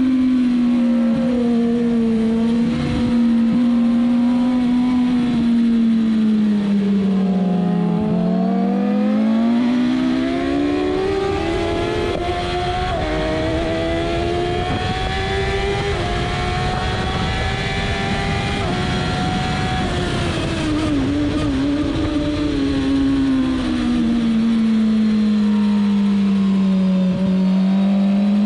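Suzuki GSX-R1000 inline-four engine at speed on a race track, with wind rush over the microphone. The engine note drops, then climbs slowly for about ten seconds at full throttle down a straight, and falls again as the rider slows from about 173 km/h to under 90 km/h for a corner, rising once more near the end.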